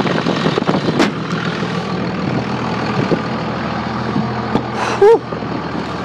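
Cummins 5.9-litre inline-six turbodiesel in a 2001 truck idling steadily. There is a sharp click about a second in and a brief voice-like sound about five seconds in.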